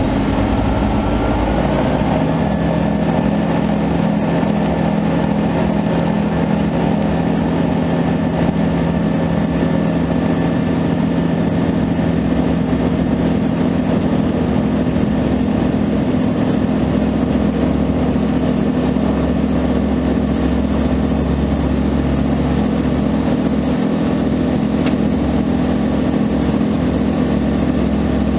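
Van's RV-12 light aircraft's Rotax 912 four-cylinder engine and propeller, heard from inside the cockpit. The engine goes to full takeoff power, its pitch rising over the first couple of seconds, then runs steadily through the takeoff roll and climb-out.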